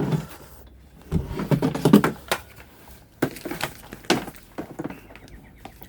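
Things being handled and shifted about: a burst of rattling about a second in, then scattered clicks and knocks.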